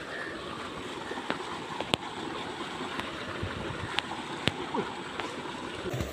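Steady rush of water with a handful of sharp splashes and slaps as men wade chest-deep through a muddy pond.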